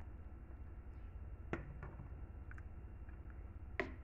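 Faint clicks of a ladle knocking against a metal cooking pot while stirring chicken curry: two sharper knocks, about a second and a half in and near the end, with a few lighter ticks between, over a low steady hum.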